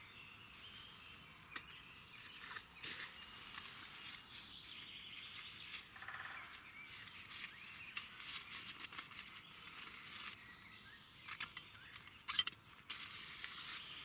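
Intermittent rustling and soft clicks of small objects and clothing being handled inside a tent.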